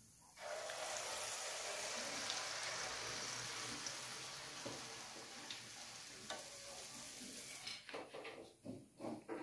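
Rice-flour sel roti batter poured into hot oil in a karahi, frying with a loud sizzling hiss that starts about half a second in and slowly dies down. A few short knocks follow near the end.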